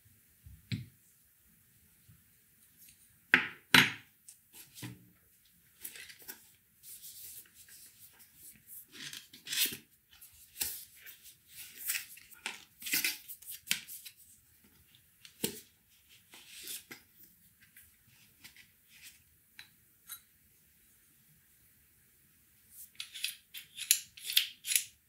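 Handling noises of espresso barista tools: sharp knocks and clicks of a coffee distributor and tamper being set on and lifted from a tamping station, with the scrape and rustle of a cardboard box being opened. The loudest are two sharp knocks a few seconds in, and a quick run of clicks comes near the end.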